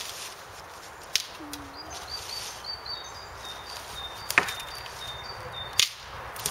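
Three sharp wooden cracks, the middle one the loudest, as sticks are handled and set up over a campfire. A small bird chirps repeatedly in the background.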